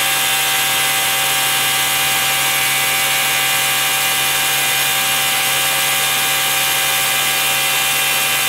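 Pneumatic dual-action (DA) sander running steadily: a continuous air hiss with a steady whine and no pauses.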